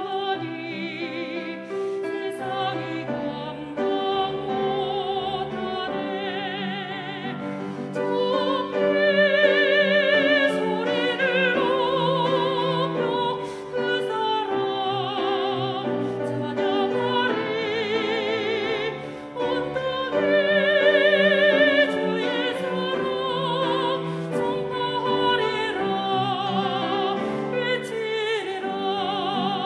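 A woman singing a hymn solo in a classical style, holding long notes with wide vibrato. Her voice swells louder about a third of the way in and again about two-thirds through.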